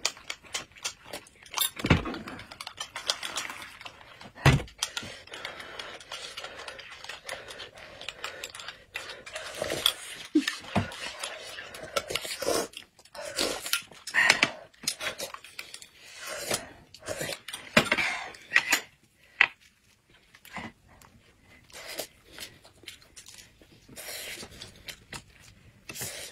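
Close-up eating sounds: sipping and slurping a thick corn porridge from glass cups, with small clinks of glass and chopsticks against dishes, and chewing near the end.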